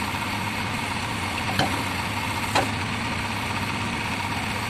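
JCB backhoe loader's diesel engine idling steadily, with two sharp metal clinks about a second apart, the second ringing briefly, as the bucket's pivot pin is worked by hand.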